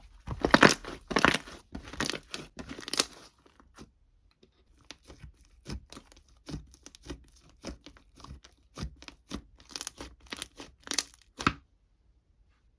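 Crinkly material being torn and handled in a run of short rustling bursts, loudest in the first three seconds, softer after that, and stopping near the end.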